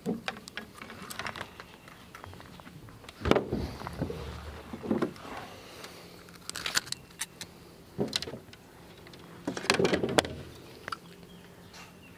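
Irregular clicks, rattles and knocks as a small bass is handled and unhooked with fishing pliers, with louder bursts of handling about three seconds in and again near ten seconds.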